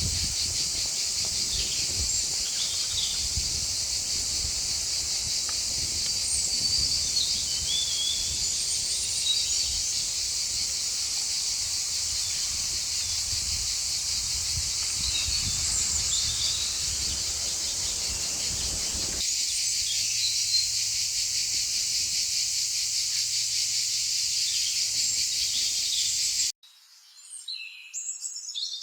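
Steady high-pitched chorus of insects, with birds chirping over it and a low rumble underneath. It cuts off abruptly near the end, leaving a few bird calls.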